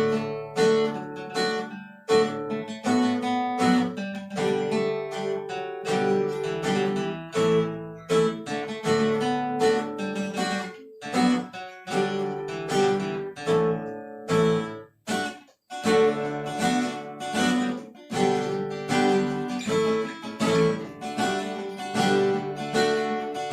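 Acoustic guitar strumming chords in a steady rhythm, an instrumental break in a song, with a brief stop about fifteen seconds in.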